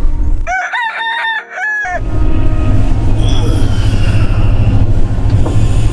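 A rooster crowing once, a multi-note cock-a-doodle-doo about a second and a half long, with everything beneath it cut out. Then the steady low rumble of the moving sleeper train carriage comes back.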